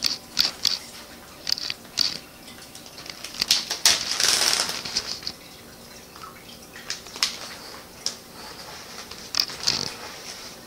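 A zip-top plastic bag crinkling and dry rice rustling inside it as the bag is opened and the rice is scooped. There are scattered sharp crackles, with a longer rustle about four seconds in.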